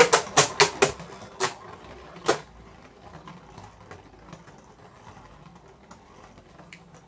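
Rage Longinus Beyblade spinning top knocking against the wall of a plastic stadium, a quick run of sharp clicks over the first two and a half seconds. It then settles to spin in the middle with a faint whirr and scattered light ticks.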